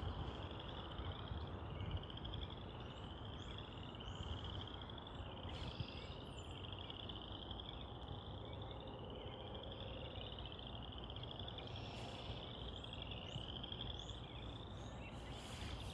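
Frogs calling: a string of short rising trills, about one a second, over a steady low rumble.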